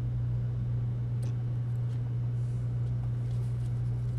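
A steady low hum with a faint tick about a second in.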